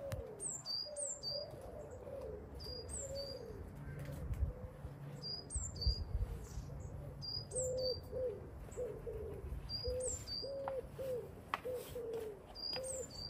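Garden birdsong: a small songbird repeats a high, falling two-note phrase every couple of seconds, while a pigeon coos in a steady run of short, low notes.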